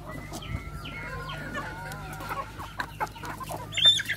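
A mixed flock of free-range chickens clucking and calling as they feed, many short overlapping calls. One long drawn-out call runs through the first half, and a sharp, loud squawk comes just before the end.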